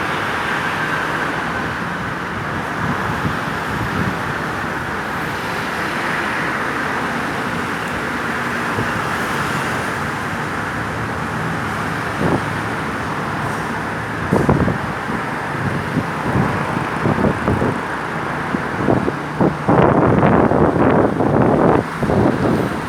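Road traffic running by steadily, without a siren. About halfway through, short loud knocks and rattles start to break in, and they crowd together near the end.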